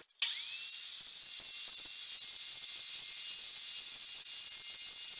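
Evolution R355 carbide-tipped chop saw switching on, its whine rising briefly, then running steady and high-pitched as the blade cuts through thin-wall angle iron.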